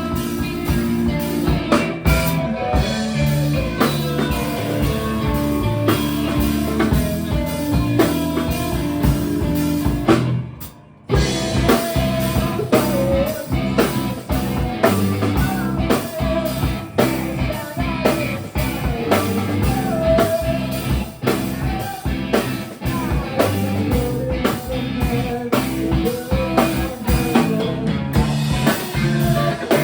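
Live punk band playing with distorted electric guitar and drum kit; about ten seconds in the band stops dead for a moment, then kicks back in together.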